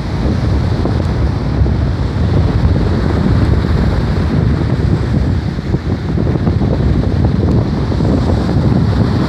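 Strong wind buffeting the microphone, a heavy, gusting low rumble that covers the wash of breaking surf.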